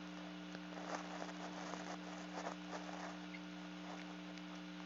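Steady, low electrical hum in the recording, with faint scattered small ticks and rustles.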